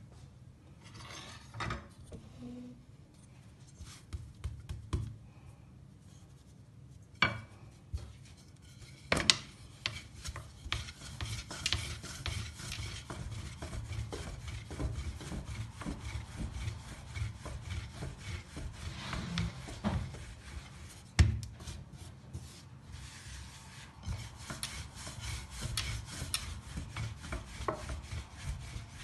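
A long, thin wooden rolling pin (oklava) rolling and rubbing dough thin on a floured granite counter. It is quieter at first and turns into a steady back-and-forth rubbing from about nine seconds in. A few sharp knocks of the pin on the stone come through, the loudest about two-thirds of the way through.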